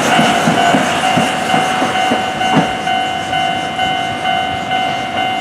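Steam locomotive C58 363 rolling slowly past, its wheels clicking over the rail joints, while a level-crossing warning bell rings in a steady repeating ding. The train noise fades toward the end.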